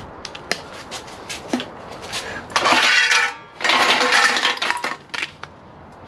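Lengths of extruded 6063 aluminum clinking and clattering against each other as they are handled and shifted in a pile. Two longer spells of louder metal scraping and rattling come in the middle.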